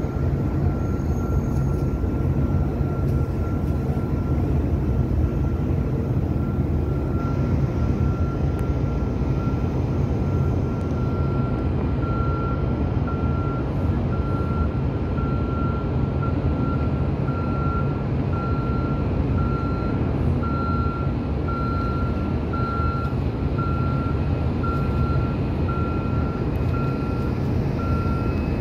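A vehicle's reversing alarm beeping at a steady, even pace, getting louder partway through, over the low, steady running of a heavy diesel engine.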